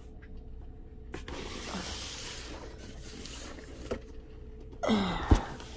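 Cardboard boxes being slid and handled, a long rubbing scrape, then a thump about five seconds in as a box is set down.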